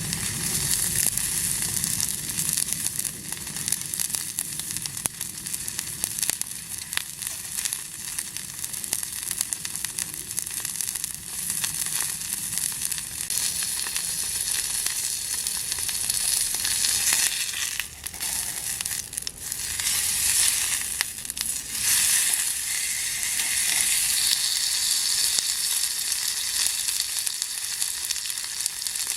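Food frying with a steady sizzle and crackle, dipping briefly a few times just past the middle.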